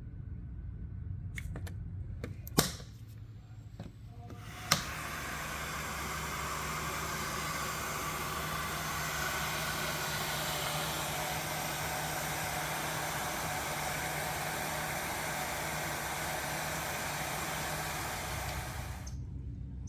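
Two sharp clicks, then a heat gun switched on and blowing steadily, a fan-like hiss over a low hum, for about fourteen seconds before it cuts off. It is being used to heat and soften a cracked plastic bumper.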